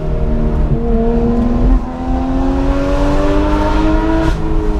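Straight-piped Porsche 911 GT3 RS naturally aspirated flat-six, with a Dundon Motorsports straight pipe, accelerating hard through the gears. The engine note climbs, breaks at a gear change just under two seconds in, climbs again for longer, then drops near the end.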